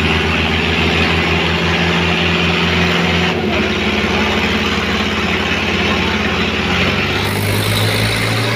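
Mahindra Arjun Ultra-1 555 DI tractor's diesel engine running hard while pouring black exhaust smoke. Its pitch shifts about three seconds in and again near the end.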